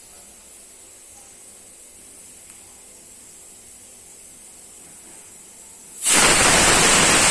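Indian pressure cooker whistling: after a faint steady hiss, a loud hissing blast of escaping steam starts suddenly about six seconds in and carries on to the end. This is the steam release that signals the cooker has come up to pressure.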